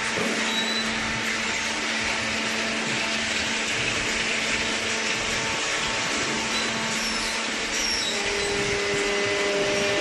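Steady whirring noise of cardboard baling machinery running, with a faint even hum underneath.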